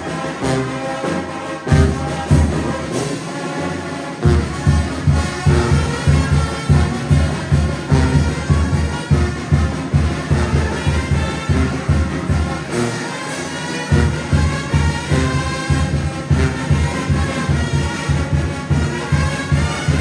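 Mexican banda music: brass over a pulsing tuba bass line and drum beat. The bass line drops out for about a second about two-thirds of the way through, then comes back.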